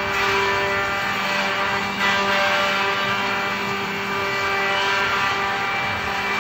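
Andreoni Standard 12 multi-spindle copy-milling machine running under cut: a steady machine hum made of several held tones, with the noisy rasp of its cutters milling wooden blanks.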